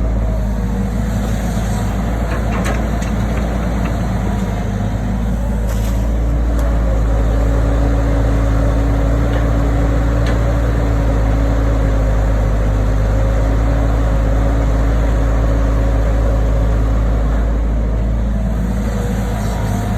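Diesel engine of heavy machinery running steadily: a deep drone with a faint whine over it, and a few faint clicks or knocks.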